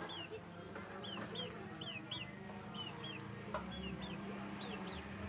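Short high chirps, falling in pitch, repeated about twice a second from birds, likely chickens or chicks, over a steady low hum.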